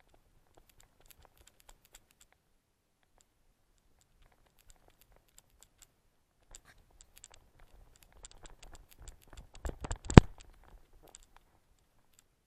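Scattered clicks and scratches of dog fur and bodies rubbing against a dog-mounted action camera's housing. They grow busier after about six seconds, and there is one sharp knock just after ten seconds as the camera is bumped.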